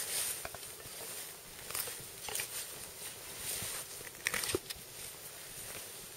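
Rustling, scraping and scattered small clicks from gloved hands and a knife working on a deer carcass lying in snow, with a few sharper clicks about four and a half seconds in.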